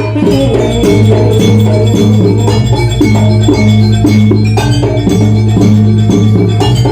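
Jaranan gamelan music: bronze mallet instruments strike a quick repeating melody over a sustained low tone, with frequent short percussion strikes.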